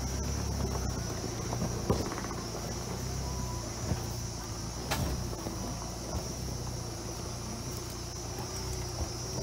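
LDV T60 ute's diesel engine running low and steady as it crawls over a rocky dirt track, heard from inside the cab, with a steady high insect drone over it. A couple of sharp knocks as the ute rolls over the rocks.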